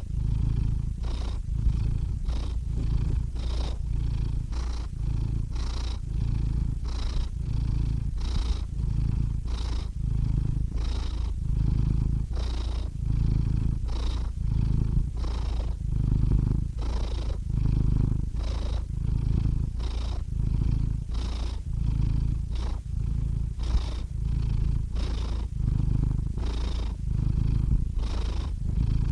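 Domestic cat purring steadily and close up, the purr swelling and easing with each breath about once a second.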